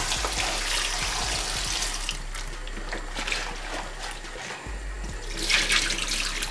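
Water running from a kitchen tap into a plastic tub of leafy greens in a stainless steel sink while they are rinsed by hand. About five and a half seconds in, a louder splash comes as the water is tipped out of the tub into the sink.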